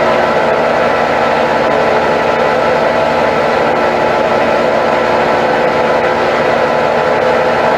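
Brastemp 8 kg Turbo washing machine spinning, a loud steady whine like a jet turbine: several steady tones over a continuous rush. The noise comes from a dried-out drum bearing that needs replacing.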